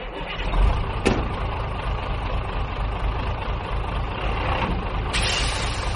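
Plastic toy truck rolling over sandy ground, a steady gritty rumble, with a sharp click about a second in.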